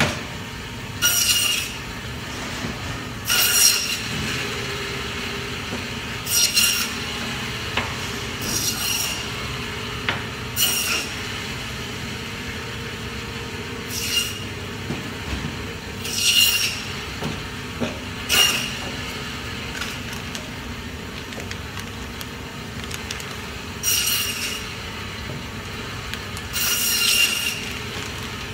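Omega Foodtech meat band saw running steadily, its blade screeching in about ten short bursts as it cuts through lamb bone and meat.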